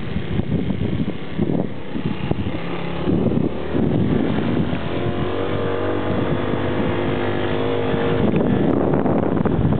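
Motorbike engine running as it rides along a bumpy, potholed dirt road, with wind buffeting the microphone. From about five seconds in the engine note holds steady.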